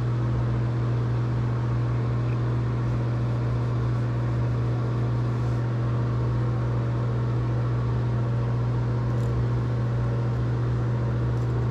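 Steady low electric-motor hum of a bathroom exhaust fan running, with a few faint high clicks about nine seconds in and near the end.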